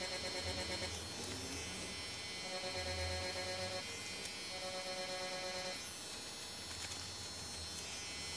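DragonHawk Mast Archer wireless rotary tattoo machine running steadily as its needle shades into fake skin, a constant electric buzz with a higher tone that cuts in and out several times.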